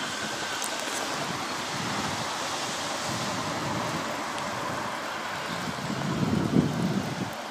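Wind buffeting an unshielded camera microphone over a steady hiss of rain, the gusts growing stronger about six seconds in.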